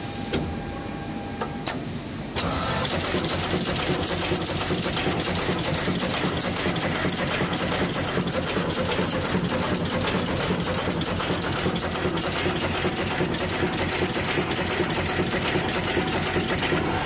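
Automatic radial component insertion machine running at speed: a dense, rapid mechanical clatter from the insertion head and feeders cycling. It starts about two and a half seconds in and stops just before the end.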